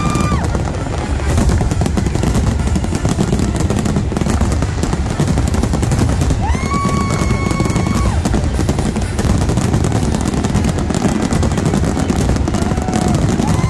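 Fireworks finale barrage: a dense, unbroken run of shell bursts and crackling reports over a heavy low rumble. A high drawn-out tone rises and then holds, once about six and a half seconds in and again near the end.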